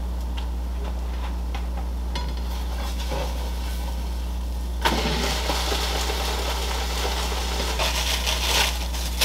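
Ham slices laid into a hot oiled frying pan over the egg and spinach, with light clinks of utensil on pan; about five seconds in, a loud frying sizzle sets in and keeps going. A steady low hum runs underneath throughout.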